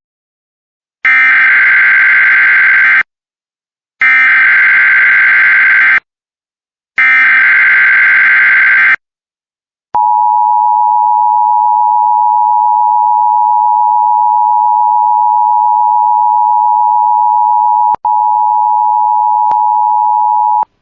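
Emergency Alert System header: three screeching bursts of SAME digital data, each about two seconds long, then a steady single-pitched attention tone near 1 kHz held for about ten seconds, with a brief click near the end. Together they signal the start of a new emergency alert.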